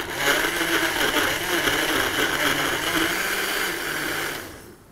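Countertop blender with a glass jar running steadily, puréeing chopped tomatoes and a little water into juice. The motor cuts off near the end and winds down.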